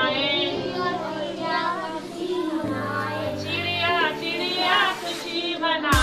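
Children singing along with a woman over background music with held low notes, the voices high and wavering.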